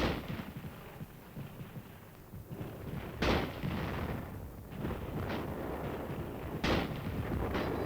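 Scattered gunshots over a low rumble of battle noise, a few separate sharp shots, the loudest about three seconds in and again near the end.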